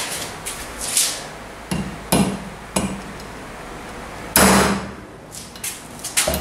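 Hammer blows on a socket used as a drift, driving the centre bushing out of a moped's rear sprocket carrier hub: several sharp metal strikes at irregular intervals, the loudest about four and a half seconds in, followed by ringing.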